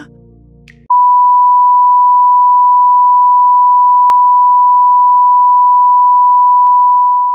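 A loud, steady test-tone beep at about 1 kHz, the pure tone that plays over colour bars to stand in for a censored scene. It starts about a second in, holds unbroken, and fades at the very end.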